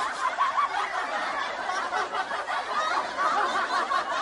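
Canned laughter: many people snickering and chuckling at once in a dense, unbroken laugh track.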